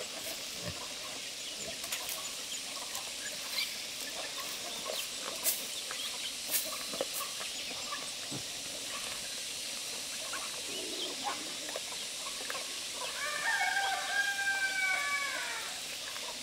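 A rooster crows once near the end, one long call of about two and a half seconds. Under it there is a steady faint hiss, with scattered light clicks and ticks from the farmyard.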